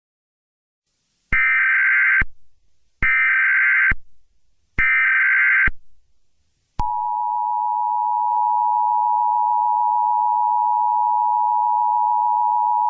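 Emergency Alert System tones: three short, harsh data bursts of the SAME header, each about a second long, then the steady two-tone attention signal starting about seven seconds in and holding.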